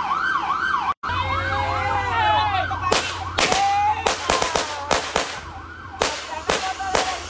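Vehicle siren wailing, its pitch sweeping up and down about twice a second, cut off for an instant about a second in and then sounding as several overlapping sweeps. From about three seconds in, a rapid string of around ten sharp bangs.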